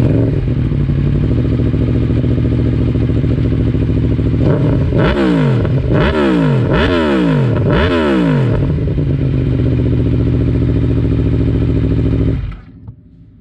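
Aprilia Tuono V4 1100 Factory's V4 engine with an SC Project exhaust idling, then revved four times in quick succession about halfway through, each rev rising and falling back to idle. It returns to a steady idle and is switched off about a second before the end.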